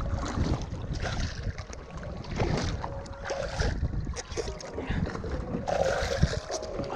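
Water sloshing and slapping against a boat's hull in uneven surges, with wind buffeting the microphone.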